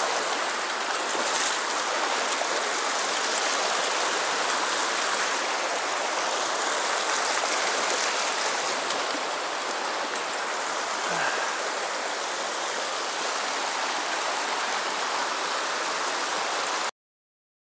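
Shallow rocky mountain stream running over stones in a riffle: a steady rushing of water that stops abruptly near the end.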